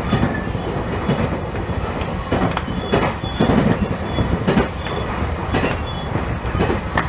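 Electric train running along the track, heard from on board: a steady rumble of wheels on rail with irregular sharp clicks and knocks from rail joints.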